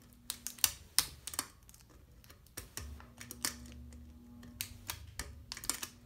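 Hunter Sea Air ceiling fan's pull-chain speed switch clicking and its chain rattling as it is pulled to medium speed, in two bursts of clicks. About two and a half seconds in, the motor settles into a faint steady hum, a bit of a hum that this fan has.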